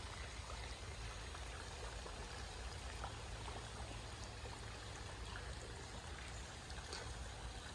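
Steady faint rushing outdoor background noise with a low rumble underneath and a few faint ticks.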